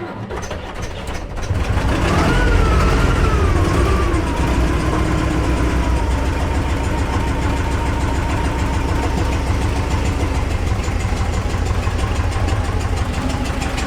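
T-40AM tractor's air-cooled two-cylinder diesel cranks briefly, catches about two seconds in, revs up and then settles into steady running. Its sound is not right: the owners hear it popping back into the intake.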